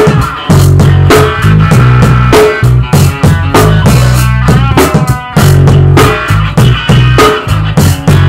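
Rock band playing: guitar, bass guitar and drum kit in a steady beat, with one brief break a little past the middle.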